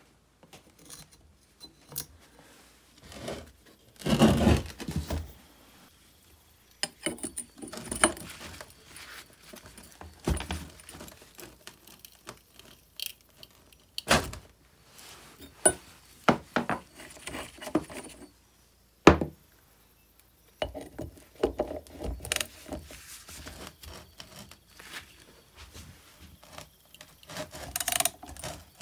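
Metal hand tools clinking and knocking against an old chainsaw engine on a metal workbench as a spanner and socket are fitted to the flywheel nut. The sounds come as scattered irregular clicks and clatters, with a louder clatter about four seconds in and a single sharp knock a little past the middle.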